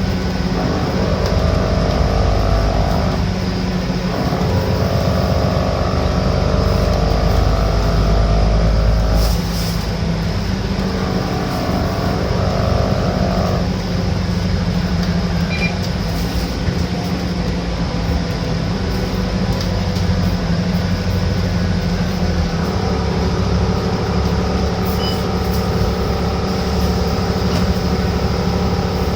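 Alexander Dennis Enviro500 double-decker bus's Cummins diesel engine running under way, with a steady low rumble and a set of whining tones that come in, shift and drop away in steps, several times. These whines are the odd noises this particular bus makes.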